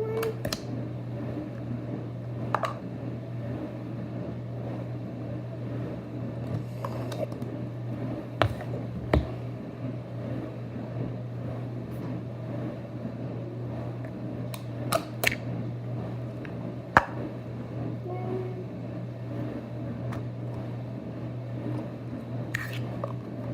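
Scattered sharp clicks and taps from handling small plastic Play-Doh tubs, the loudest about nine and seventeen seconds in, over a steady low hum.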